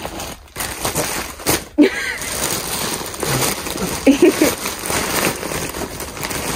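Plastic postal mailer bag being torn open and crinkled as its contents are pulled out, a steady crackling rustle with a few sharper rips.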